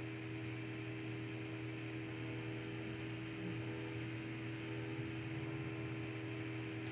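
Steady electrical hum with a background hiss, the room tone of a computer's recording; one faint click near the end.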